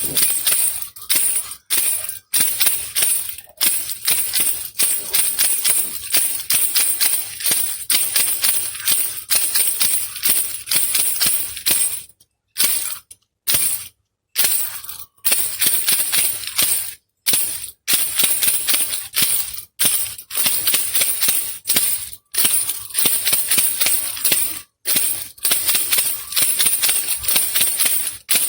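Baby rattle (khulkhula) shaken in quick runs of dense rattling, broken by brief silent pauses, a few of them bunched around the middle.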